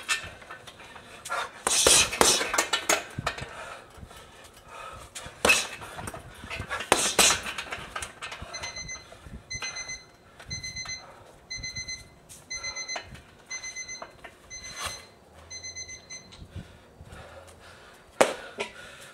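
A boxer panting hard after heavy-bag punching, with loud heavy breaths in the first half. Then an electronic beeper sounds about once a second, eight short beeps, and one more sharp breath comes near the end.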